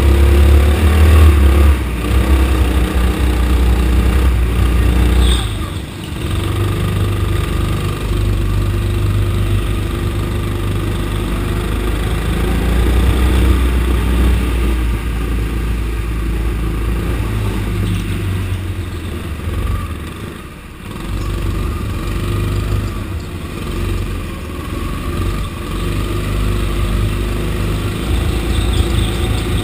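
Rental go-kart engine running under throttle, heard from on board the kart, its note rising and falling through the lap. The sound drops away briefly twice, about six seconds in and again about twenty seconds in.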